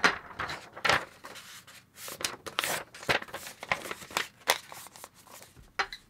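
A sheet of paper being handled and crinkled, in irregular short rustling bursts.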